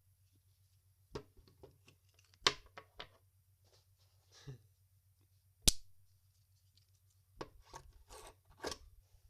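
Small magnet clicking and snapping against metal, with short scrapes as it is slid and pulled off. The sharp clicks are irregular, the loudest about five and a half seconds in, followed by a run of smaller clicks and scrapes near the end.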